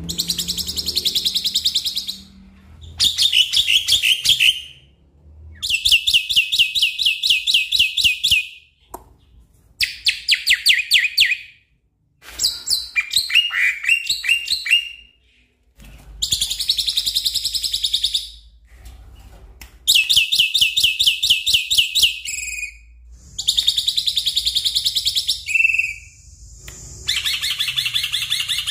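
Black-winged starling (jalak putih) singing: about nine bouts of rapid, sharp, repeated notes, each lasting two to three seconds, with short pauses between them.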